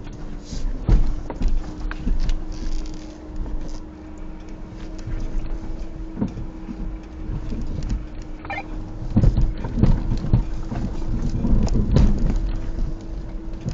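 An off-road vehicle's engine running steadily while it crawls over a rough trail towing another vehicle. Knocks and clunks from the jolting body and suspension come throughout and are loudest about nine to twelve seconds in.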